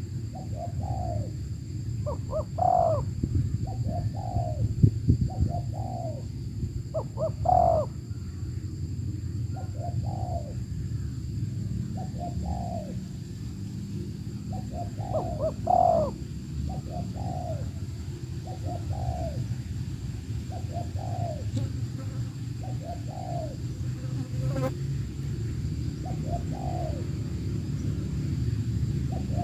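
Spotted doves cooing: a steady run of short coos in repeated phrases, a few notes much louder than the rest, over a steady low rumble.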